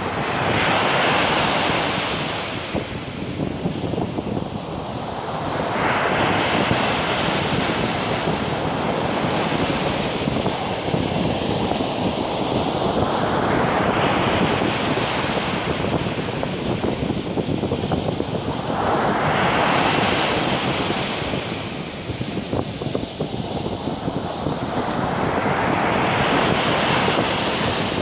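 Sea surf: waves breaking and washing up a sandy beach, about five surges each rising and fading away, one every five to eight seconds. Wind buffets the microphone throughout.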